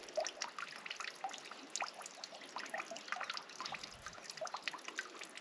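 Faint, irregular crackles and soft clicks of chatpate ingredients (puffed rice and other dry pieces) being mixed by hand or spoon as oil and sour juice are worked in.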